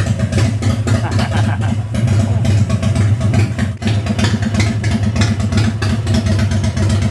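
Air-cooled V-twin engine of a custom chopper idling steadily and loudly, with an even, fast pulsing beat.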